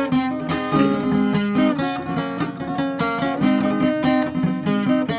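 Acoustic guitar playing an instrumental fill between sung lines: a run of plucked notes and strummed chords, with no singing.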